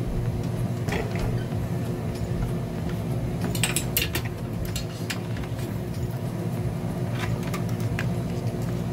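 Small clicks and taps of a digital multimeter and its test leads being handled on a wooden bench, clustered about halfway through and again near the end, over a steady electrical hum.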